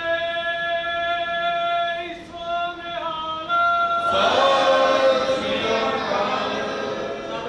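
A man chanting a long, held line, joined loudly by many voices in unison about four seconds in; the group chant then fades.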